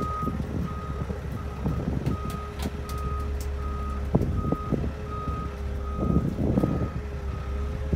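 Rollback tow truck's backup alarm beeping steadily, about three beeps every two seconds, over the low hum of the truck running. Occasional clunks come through, the loudest about four seconds in and again near six to seven seconds.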